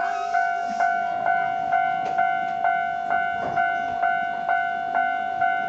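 Japanese railway level-crossing alarm ringing: a two-tone electronic bell repeating steadily about twice a second.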